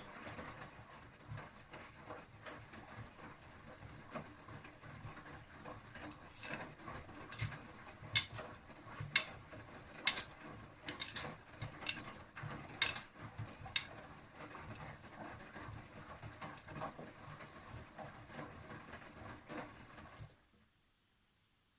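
AEG Lavamat 6000 series washing machine drum rotating, with a low hum and a rattling vibration. Sharp clicks and knocks are loudest from about a quarter to two-thirds of the way through, and the sound stops abruptly near the end. The rattling is the fault noise that appears when the drum turns.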